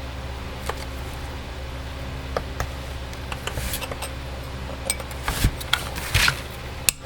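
Scattered small clicks, taps and scrapes of tools and parts being handled on a chainsaw during teardown, with a few louder knocks and scrapes near the end, over a steady low hum.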